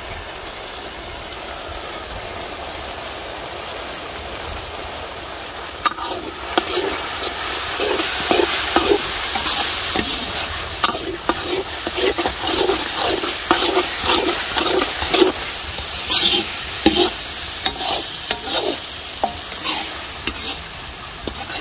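Country chicken chukka frying in sesame oil in a pan, sizzling steadily, with the freshly added pounded masala. From about six seconds in, a ladle stirs it with repeated scraping strokes against the pan, roughly two a second.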